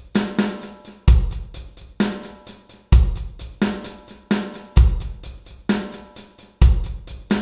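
Drum kit playing a steady beat on its own, with bass drum, snare and hi-hat: the drums-only intro of a song.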